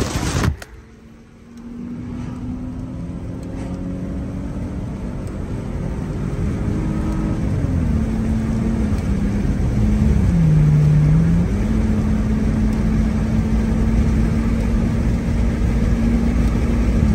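A loud burst of sound cuts off about half a second in. Then a car's engine and road noise are heard from inside the cabin, growing gradually louder as the car gathers speed. The engine hum shifts in pitch a few times, dropping and rising again.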